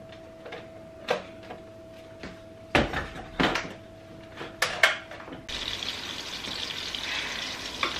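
A plastic blender jar is knocked and clicked into place on its base: a few sharp knocks over about five seconds, with a faint steady hum underneath. About five and a half seconds in, this gives way suddenly to the steady sizzle of pots frying on a hob.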